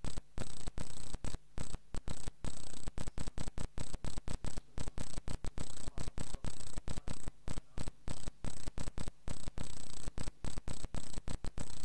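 No recitation, only the recording's background noise: a steady hiss with a faint high whine and a low hum. It is cut by brief dropouts several times a second.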